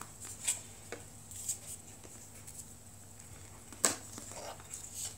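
Cardboard inserts and accessory packs of a Huawei P9 box being handled: scattered light taps and scrapes, with a sharper knock a little under four seconds in.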